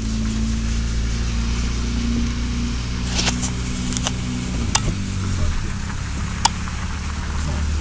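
Saab 9000 engine running steadily with a low hum, its note shifting about five seconds in, with a few sharp clicks along the way.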